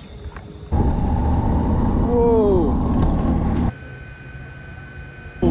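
Wind buffeting the microphone in loud, rumbling stretches that cut in and out abruptly, with a short falling tone about two seconds in.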